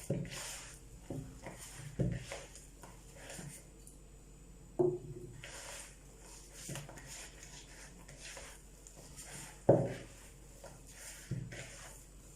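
Hands gathering and working a soft semolina dough in a mixing bowl: scattered soft rustles and squishes with a few knocks against the bowl, the loudest nearly ten seconds in.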